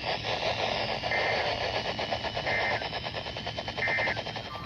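Crackling static from a radio receiver tuned for emergency alerts, with three short burst tones about a second and a half apart: the data header that announces an incoming EAS alert.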